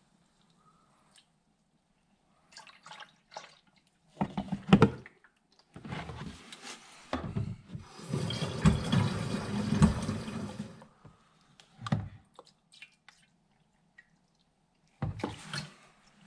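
Water poured from a jug into a Humvee's radiator in several separate pours, the longest lasting about three seconds, with short clicks and knocks between them.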